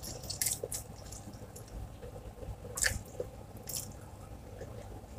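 A person eating rice and tomatoes with her hands close to the microphone: wet chewing and lip smacks, with a few short sharp clicks, the sharpest about three seconds in.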